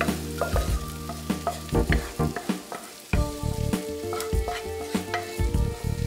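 Wooden spatula stirring and scraping sautéed diced vegetables in a nonstick frying pan, with quick clacks against the pan and light sizzling; from about four seconds in, the pan is tipped and the vegetables are scraped out into a bowl. Background music with held chords plays underneath.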